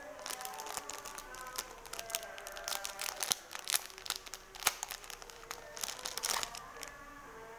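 Plastic and paper wrapping crinkling and crackling in quick, irregular bursts as a metal bangle is unwrapped by hand. Faint background music with held notes runs underneath.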